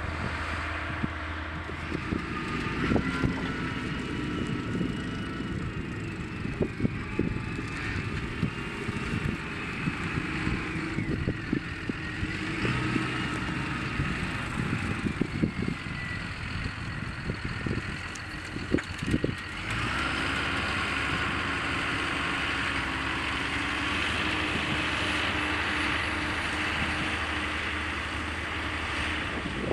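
CLAAS Arion 640 tractor's six-cylinder turbodiesel running as it pulls a five-furrow reversible plough, with a whine that rises and falls in pitch and scattered clicks and knocks. About two-thirds of the way through the sound turns steadier and slightly louder, with more high-pitched noise.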